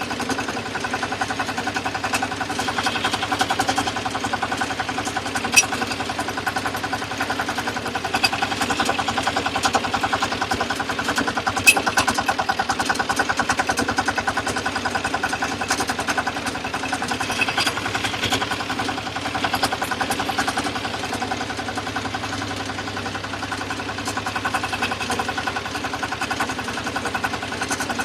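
Rice and wheat combine harvester running steadily, its engine and machinery giving a fast, even pulsing hum, with two sharp clicks about six seconds apart.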